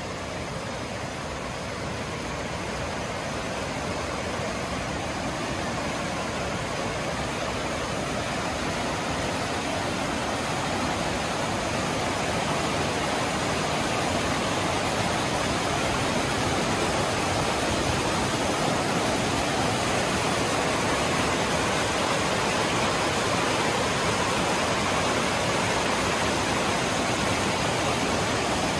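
Rushing mountain creek tumbling over boulders: a steady rush of white water that grows louder over the first ten seconds or so, then holds.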